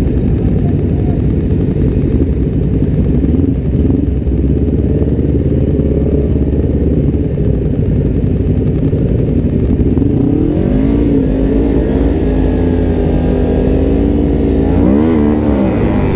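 Motorcycle engines idling at a stop, led by a Honda CBR250RR's parallel-twin. About ten seconds in they rev and pull away, the pitch climbing, dipping and climbing again as the bike shifts up and accelerates into a turn.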